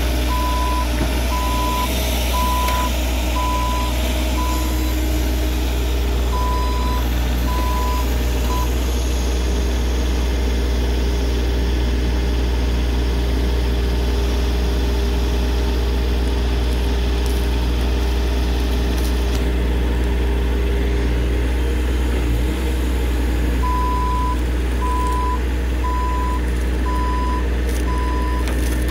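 Bobcat E35 mini excavator's diesel engine running steadily as it works the logs, with a backup alarm beeping about once a second for the first several seconds and again near the end.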